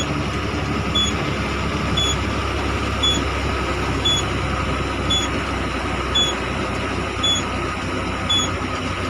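Vehicle engine idling with a steady low hum, overlaid by a short, high electronic beep that repeats about once a second, like a vehicle's warning beeper.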